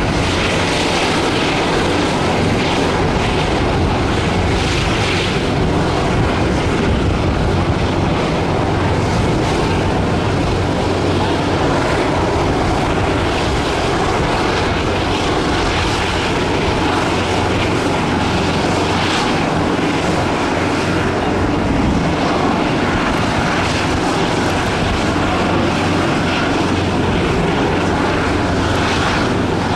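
Boeing 787-10's Rolls-Royce Trent 1000 turbofans at takeoff thrust: a steady, loud jet engine noise through the takeoff roll, liftoff and climb-out.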